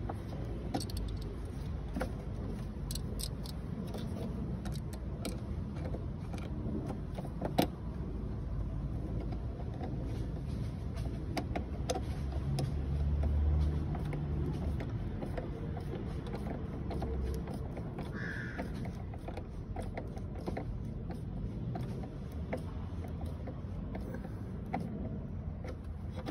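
A screwdriver working on fittings in a car engine bay, with scattered small metallic clicks and scrapes. There is a sharper knock about seven and a half seconds in and a duller low bump about halfway through. The engine is not running.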